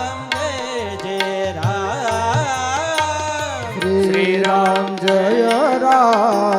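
Marathi Varkari bhajan music: a wordless, ornamented melody sung with vibrato over a sustained drone, with hand-drum strokes keeping the beat. The low drone drops out about four seconds in and the melody carries on higher.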